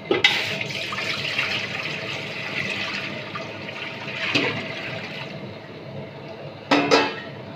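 Water poured from a vessel into a large empty metal cooking pot, splashing steadily for about five seconds, then a brief clatter near the end.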